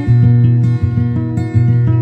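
Background music with a plucked guitar playing a steady run of notes.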